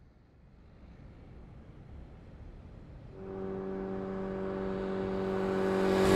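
Motorcycles approaching at speed. A faint rising approach noise gives way, about three seconds in, to a steady engine drone that keeps getting louder as the bikes draw close.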